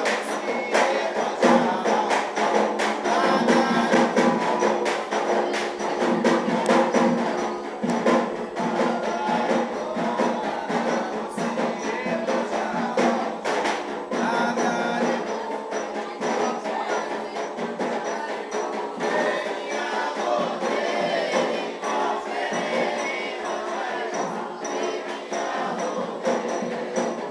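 Candomblé ritual music: fast, steady percussion with a group singing over it.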